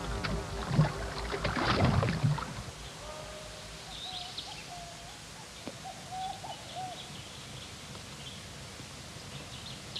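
Sliding, warbling electronic tones of the film's soundtrack stop about two and a half seconds in. They give way to faint outdoor ambience with a few short wavering calls and high bird chirps.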